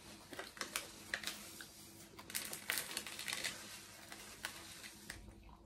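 Fast-food paper wrapper and cardboard carton being handled: faint crinkling with a run of small crackles and clicks, busiest from about two and a half to three and a half seconds in.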